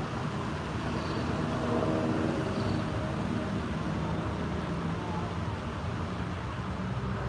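Steady road traffic noise: a continuous rumble of vehicle engines and tyres.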